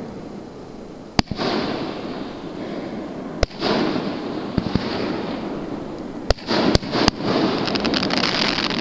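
Fireworks going off: sharp bangs about a second in, again about three and a half seconds in, and three in quick succession later on, each trailing a long echoing boom. Fast crackling comes near the end.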